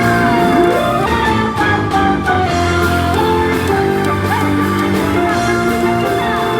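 Digital keyboards playing a worship song: steady sustained chords under a moving melody line.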